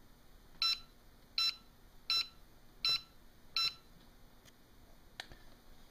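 WL Toys V969 quadcopter's radio transmitter beeping five times, short even beeps about three-quarters of a second apart. Each beep marks a rudder trim step set off by light pressure on the transmitter case, which is pressure-sensitive. A faint click follows near the end.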